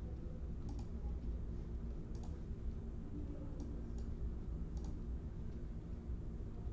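A handful of faint, scattered clicks, about five over several seconds, over a steady low hum.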